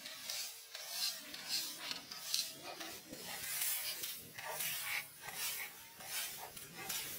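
Leafy branch broom sweeping dry leaves across wooden porch boards: a run of short, scratchy brushing strokes, about one or two a second.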